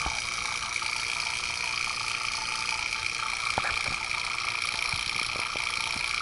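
Refrigeration vacuum pump running steadily while evacuating the system down into a deep micron vacuum: a steady whining hiss with a few faint clicks.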